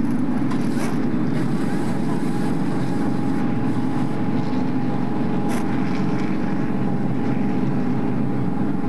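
Steady drone of stock-car racing engines running during a pit stop, with a brief higher-pitched burst about five and a half seconds in.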